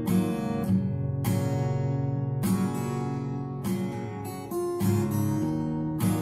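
Acoustic guitar strumming chords, with a sharp strum about once a second and the chords ringing between strums.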